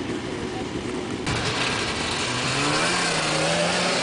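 Snowmobile engines running near the camera. The sound jumps louder a little over a second in, then one engine revs up and holds a steady note.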